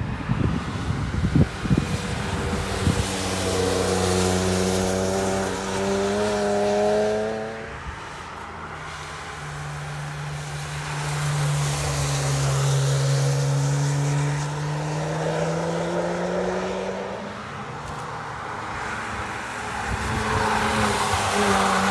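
Cars driven hard through a wet racetrack corner, passing one after another, each engine note rising as the car accelerates out of the bend. There is rough crackling in the first few seconds.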